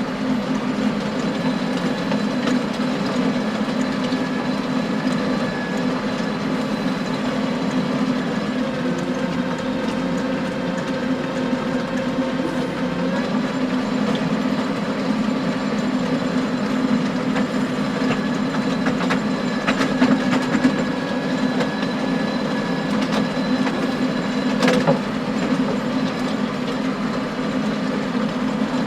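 John Deere tractor engine running steadily under load while pulling a power harrow, with scattered sharp clacks of stones striking the harrow tines; the loudest clacks come about twenty and twenty-five seconds in.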